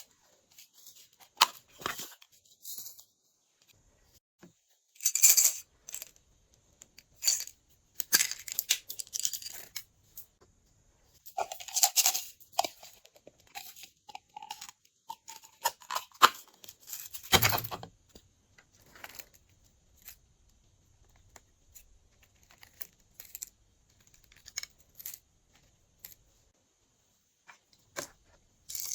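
Glossy slime being squeezed and stretched by hand, making irregular sticky clicks, pops and crackles.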